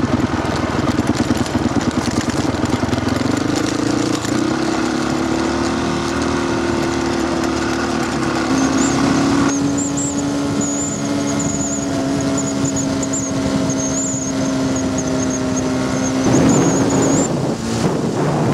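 Enduro dirt bike engine running under way. The engine note climbs as it picks up speed a few seconds in, holds steady at cruising revs, and then breaks off and changes near the end.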